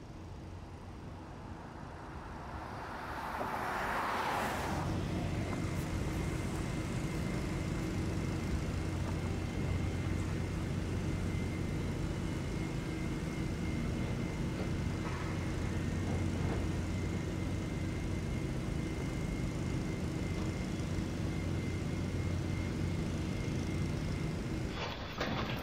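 A rush of noise swells and fades about three to four seconds in. Then a steady low engine drone takes over, with a faint high whine above it, and it cuts off just before the end.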